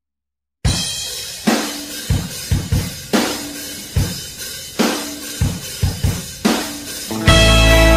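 Recorded rock music: a drum-kit intro of kick drum, snare and cymbal hits played alone, starting about half a second in, each hit ringing away before the next. Near the end the full band comes in with sustained guitar and bass.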